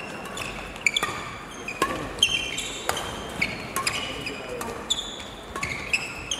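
Doubles badminton rally: sharp racket strikes on the shuttlecock about once a second, with sports shoes squeaking on the court floor between the hits.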